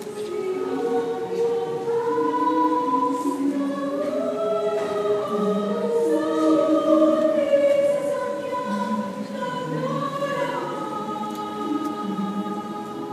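Mixed choir of men's and women's voices singing in harmony, several parts holding long notes that change pitch together.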